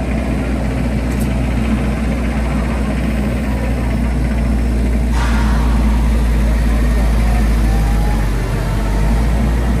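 An engine idling steadily with a low hum; a hiss joins it about five seconds in.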